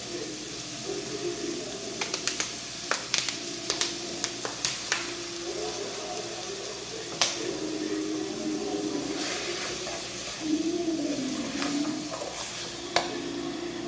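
Meat frying in a pot on the stove with a steady hiss, and a spoon clicking against the pot several times in quick succession, then a few more single taps later.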